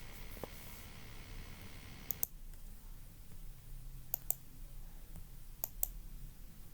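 Sharp clicks in three quick pairs, about two seconds apart, like a computer mouse being clicked, over faint room hiss. A faint steady high hum cuts off at the first pair.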